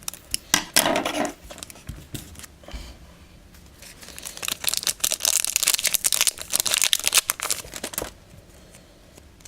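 Foil wrapper of a Yu-Gi-Oh booster pack being torn open and crinkled by hand: a short crackling burst at the start, then a longer stretch of crinkling from about four seconds in to about eight.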